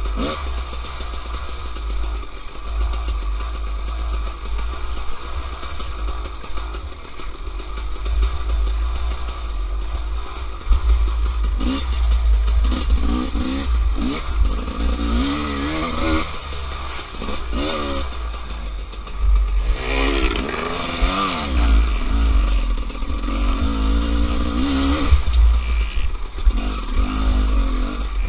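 Dirt bike engine running hard on the trail, its pitch rising and falling over and over with the throttle, loudest in the second half, over a steady deep rumble.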